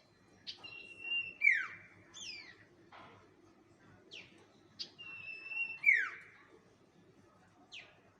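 Bird lure call (suara pikat): a whistled phrase of short sharp downward notes, a held note and a loud falling sweep, given twice.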